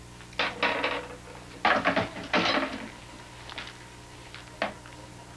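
Dishes and utensils clinking and clattering as they are handled on a table: about half a dozen short knocks at uneven intervals.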